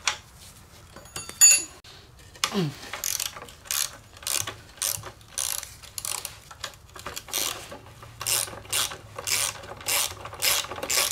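Hand socket ratchet on an extension loosening the engine-mounting bolts, clicking in a steady run of short strokes about twice a second. A single sharp metal clink about one and a half seconds in is the loudest sound.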